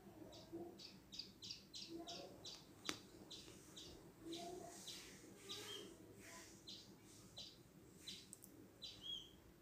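Faint, rapid chirping of small birds, about three short chirps a second, with one sharp click about three seconds in.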